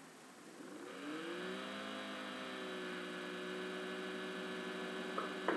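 A low steady hum made of several pitched tones starts about half a second in, rises in pitch briefly, then holds level. Two soft clicks come near the end.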